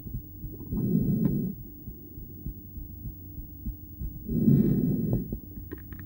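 A woman's heartbeat heard through a stethoscope on her chest: soft low thuds, covered twice, about a second in and again about three and a half seconds later, by a loud breath through the stethoscope.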